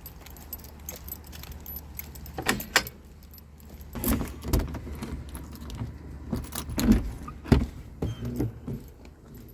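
Small metal pieces jingling, with scattered knocks and clicks.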